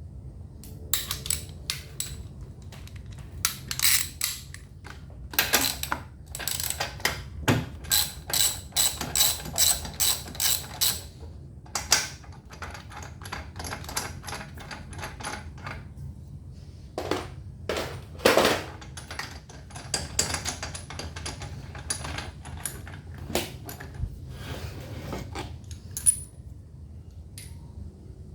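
Ratchet wrench clicking in runs, with metal tool clinks, as the spark plug is unscrewed from a small gasoline inverter generator engine.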